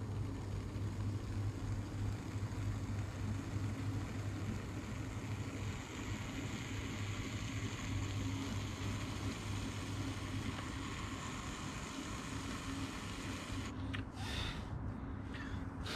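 Electric pottery wheel motor humming steadily while a trimming tool scrapes the spinning stoneware plate, a dry scratchy hiss, on a final pass to clean ridges out of the foot. Near the end come a few short scrapes and clicks as the tool is worked at the edge.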